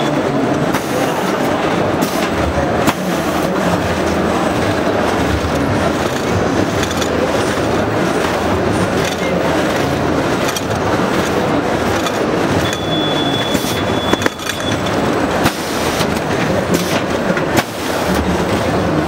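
Automatic two-line perforating machine for coreless bags on roll running: a steady mechanical clatter of rollers and perforating gear, with sharp clicks now and then.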